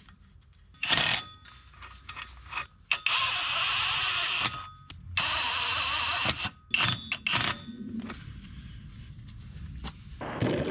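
Two bursts of about a second and a half of a small power tool whirring, with metallic clinks of hand tools and fasteners between them. This is bolts and nuts being run onto a car's drive-shaft flex disc.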